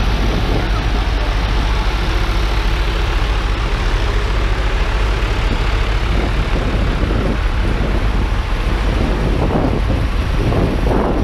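Several vintage farm tractor engines run as a line of John Deere and International Harvester tractors drives slowly past, making a deep, steady rumble. A nearer tractor's engine grows louder near the end.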